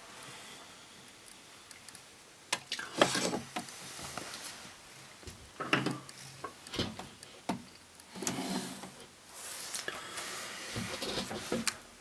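Handling noises: irregular clicks and knocks with rubbing and scraping sounds in between, starting about two and a half seconds in.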